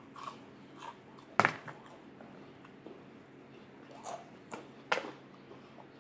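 A person eating close to the microphone: quiet chewing and mouth sounds with a few short sharp clicks, the loudest about a second and a half in and again near the end.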